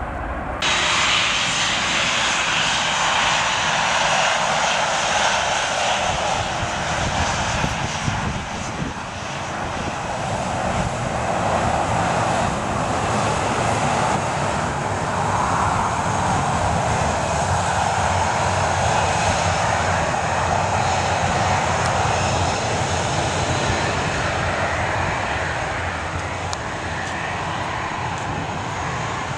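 Jet engines of a Thomson Boeing 737 at low power as it moves along close by: a steady rushing whine that slowly swells and eases. It starts abruptly about half a second in.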